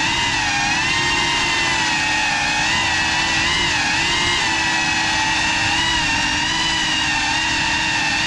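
GEPRC Cinelog35 cinewhoop FPV drone's four brushless motors and ducted 3.5-inch propellers whining steadily. The pitch wavers up and down a little as the throttle is worked.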